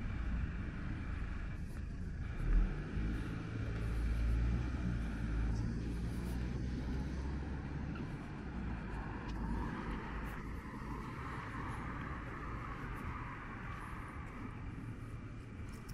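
Street traffic: a car engine rumbles past, loudest in the first half, with a single thump about two and a half seconds in, then eases off.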